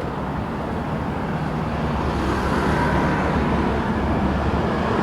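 Low, steady engine rumble and traffic noise from passing heavy vehicles, slowly growing louder.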